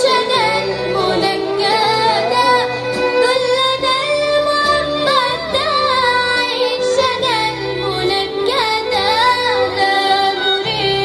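Music: a sliding, ornamented melody over sustained low chord notes, from a live performance of an Arabic patriotic song.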